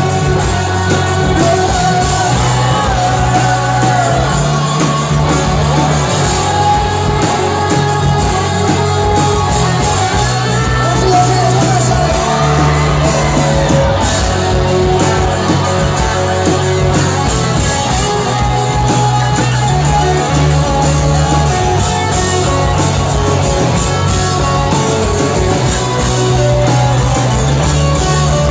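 Live rock band playing loudly with a lead singer: electric guitars, bass and drums, with the bass line moving to a new note every couple of seconds.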